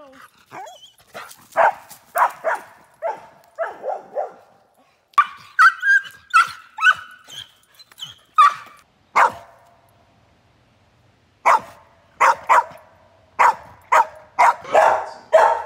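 Australian shepherd barking in quick runs of short, sharp barks, some higher and yelping, with a pause of about two seconds past the middle.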